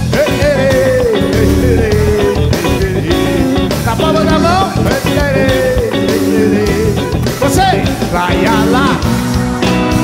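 Live band music, with an electric guitar playing a bending lead melody over bass, drums and rhythm guitar.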